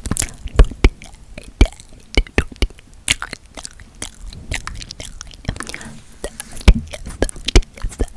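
Close-miked ASMR mouth sounds: quick, irregular wet clicks and smacks, several a second.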